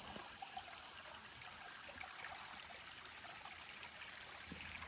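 Small mountain stream trickling and running steadily over rocks.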